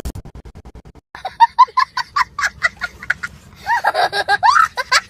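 A quick run of low pulses lasting about a second, then high-pitched cackling laughter in rapid bursts, used as a meme sound effect.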